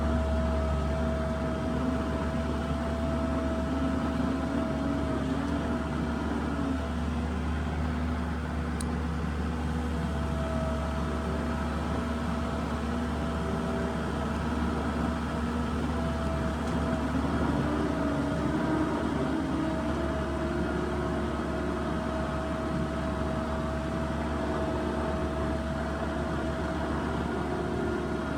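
New Holland LS170 skid steer's diesel engine running steadily as the machine drives, with a steady whine over it. The engine note shifts a little a couple of times.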